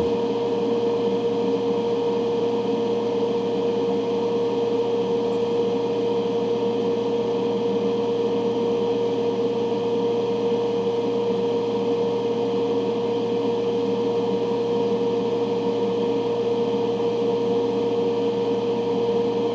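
Ventilation fan running with a steady hum and a constant mid-pitched whine.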